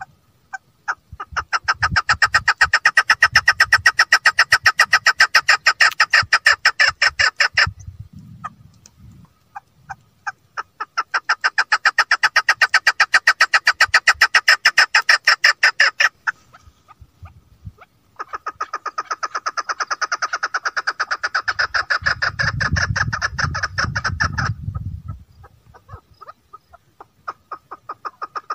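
Chukar partridge calling: long runs of rapid, evenly repeated chuck notes in three bouts of several seconds each, separated by short pauses, with a new run starting near the end.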